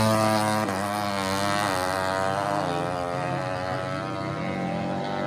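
Drag-racing motorcycle engine accelerating hard away down the strip, its pitch climbing and then dropping at each gear change, a few times over, as it fades into the distance.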